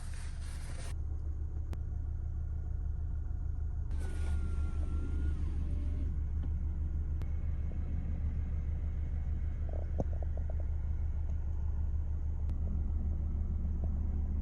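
Car engine running, heard as a steady low rumble, with a faint short tone about four seconds in.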